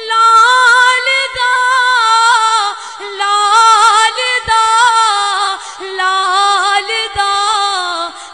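A young woman singing an Urdu-Punjabi naat unaccompanied, drawing out long ornamented notes that waver and turn without clear words, with a couple of brief pauses for breath.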